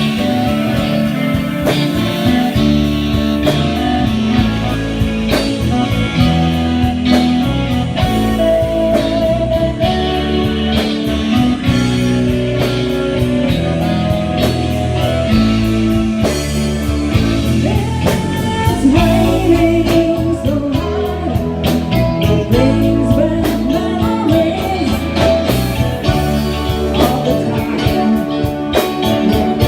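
A band playing a blues-rock song with guitar and a drum kit, with singing.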